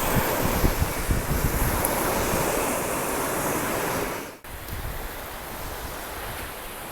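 Ocean surf washing on the shore, with wind buffeting the microphone. About four seconds in the sound cuts out for an instant, then continues as quieter, steadier surf.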